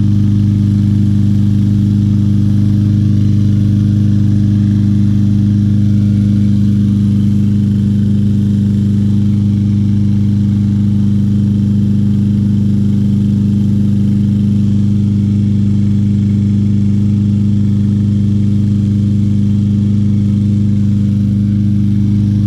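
Craftsman M320 lawn mower's 163cc Briggs & Stratton single-cylinder engine running steadily at constant speed, with its air filter removed. It runs smoothly despite the mower having been described as a non-starter.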